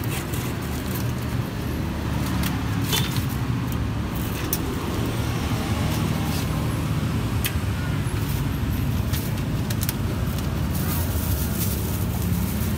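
Steady low rumble of road traffic, with scattered short clicks and rustles as fried snacks are bagged in paper and plastic bags.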